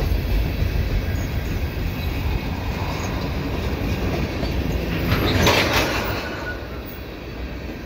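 Freight cars of a slow-moving train rolling past with a steady low rumble and clatter of wheels on rail. About five seconds in, a louder burst of metallic noise rises for about a second and then fades.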